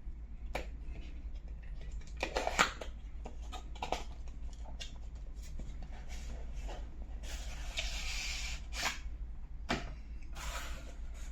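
Phone retail box being opened by hand: a pull tab torn open and cardboard and paper packaging handled, with scattered taps, clicks and rustles and a longer scraping sound about seven seconds in.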